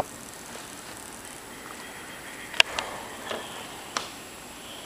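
Steady rush of thunderstorm wind and rain heard from inside a house, with a few sharp taps in the second half.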